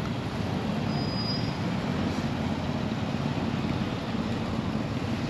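Motorcycle engine running steadily under riding wind noise, heard from the rider's onboard microphone.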